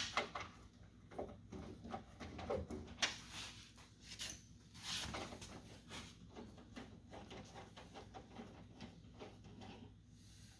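Irregular clicks and light metallic knocks from a wrench working a 10 mm bolt inside a car door. They are busiest in the first six seconds or so and grow fainter toward the end.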